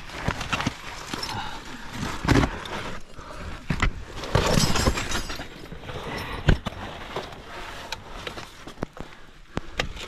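Climbing hardware on rock: irregular metallic clinks, knocks and scrapes of gear and crampon points. Two longer hissing stretches come about two seconds in and around the middle, and a single sharp knock follows a little later.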